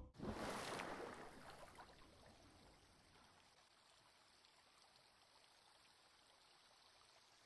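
Lake water near a dock: a brief rush of splashing that fades over about two seconds, then faint, steady lapping at near silence.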